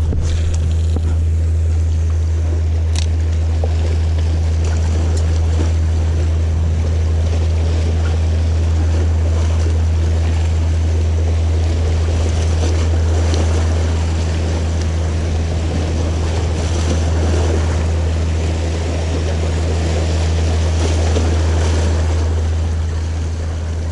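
Waves washing and breaking against the rocks of a jetty, over a steady low hum.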